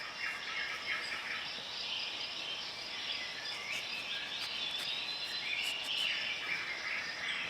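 Birds chirping faintly and continually over a steady outdoor background hiss.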